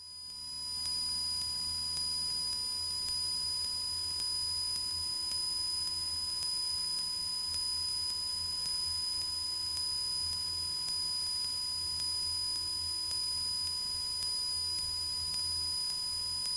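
Cessna 172's piston engine heard as a low, steady drone in the cockpit, with a steady high-pitched electrical whine over it.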